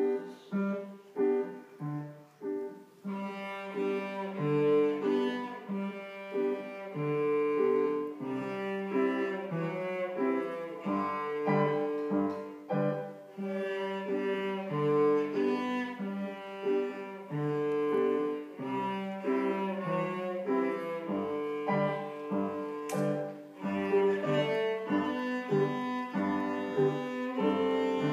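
A young girl playing a cello with a bow, accompanied on a grand piano. The first few seconds are short, detached notes, then long sustained bowed notes carry a slow melody over the piano.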